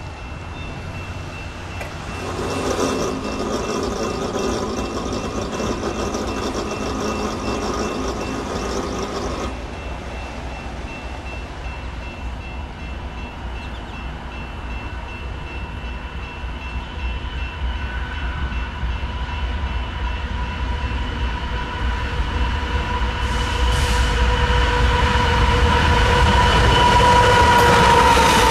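BNSF diesel freight train approaching, its horn sounding one long blast of about seven seconds starting around two seconds in. After the horn stops, the low rumble of the locomotives' engines and wheels grows steadily louder as the lead units pass close near the end, with a steady high tone underneath.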